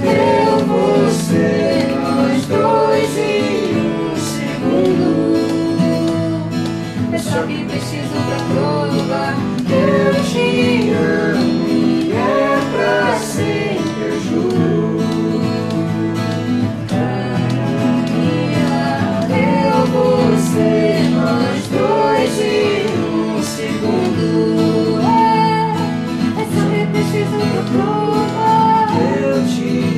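Acoustic pop song played live on three strummed acoustic guitars, with voices singing a wavering melody over the chords.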